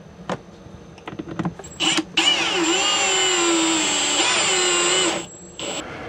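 Cordless drill driving a screw through a strap bracket into the wooden cabinet wall. After a click and a few light ticks, the motor runs for about three and a half seconds, its pitch dipping and rising as the speed changes, then stops.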